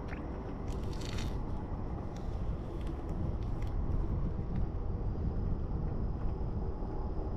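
Low, uneven rumble of wind on the microphone, with a few faint soft crackles of fingers picking pith off a peeled mandarin orange, clustered about a second in.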